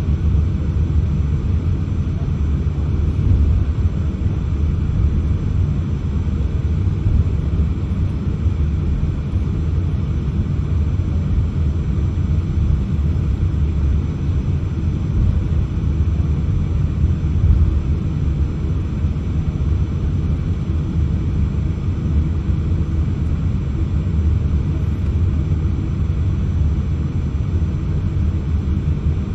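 Steady low rumble inside the cabin of a Boeing 787-8 during taxi: its Rolls-Royce Trent 1000 engines running at idle, with the airliner rolling on the taxiway.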